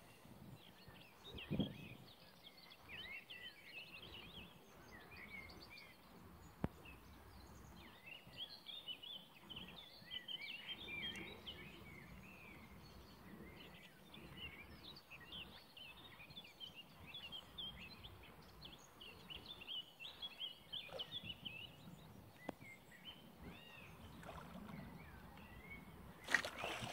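Small birds singing faintly, a steady run of short high twittering and chirping notes over outdoor background noise. A brief knock about a second and a half in and a click a few seconds later.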